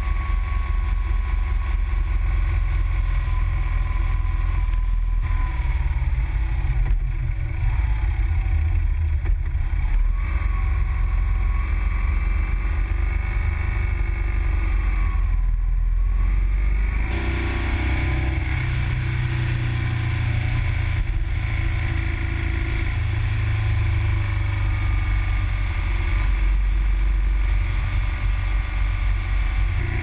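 Motorcycle engine running at road speed, its pitch rising and falling with the throttle, under heavy wind rumble on the bike-mounted camera. The sound changes abruptly about 17 seconds in.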